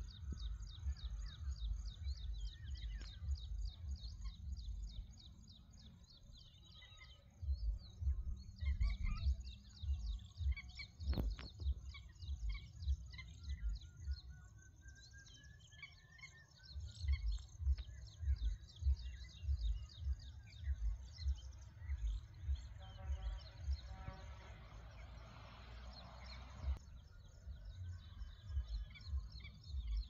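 Many wild birds chirping and calling all at once, one of them giving a series of notes that falls in pitch about halfway through. Irregular low rumbles of wind on the microphone come and go, louder than the birds.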